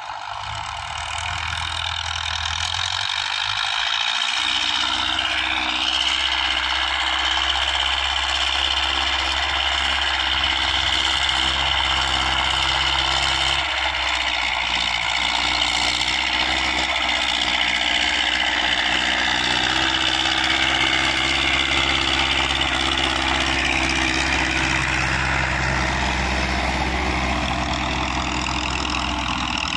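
Four-wheel-drive farm tractor's diesel engine running steadily as it pulls a disc harrow through the soil. It grows louder over the first few seconds as it comes closer.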